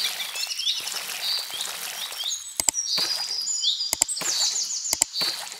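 Songbirds chirping and trilling in quick repeated high calls, with a few sharp clicks from about halfway on.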